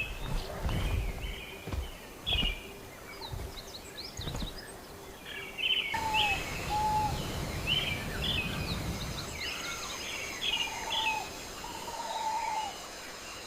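Rainforest ambience of many birds calling: repeated short chirps and whistled notes, with low rumbles in the first few seconds. About six seconds in the background changes, and a steady high insect drone joins lower, slurred whistled calls.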